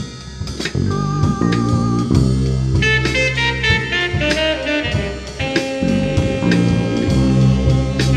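Instrumental lo-fi background music: sustained melodic notes over a steady drum beat.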